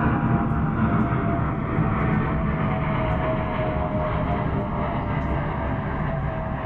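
Airplane engine noise: a steady, loud rush with a whining tone that falls slowly in pitch.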